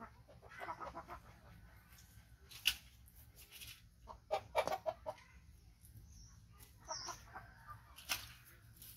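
Chickens clucking in short irregular bursts, with a couple of brief high chirps and a few sharp clicks.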